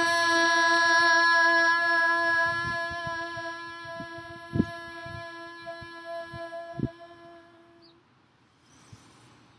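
Women's voices singing one long, steady toning note on a single pitch, fading and stopping about eight seconds in. A couple of low wind thumps on the microphone sound under it.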